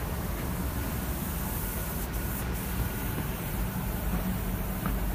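Steady outdoor city background noise: a low rumble with a high hiss over it that drops out briefly twice, about two seconds in.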